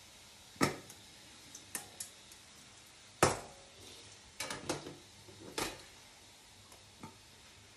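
Metal steamer tray and steamer pot being handled as a tray of dumplings is set into the steamer: a string of separate sharp clinks and knocks, the loudest about three seconds in and several close together about halfway through.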